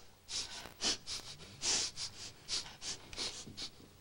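A person sniffing over and over, more than a dozen short, quick sniffs in an uneven run.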